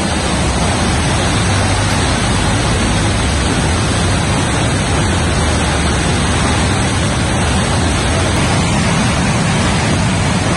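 Swollen floodwater rushing and churning over a road in a loud, steady roar of water.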